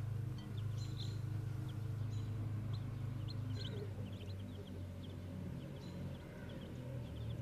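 Many short, high bird chirps, several a second, over background music and a steady low hum.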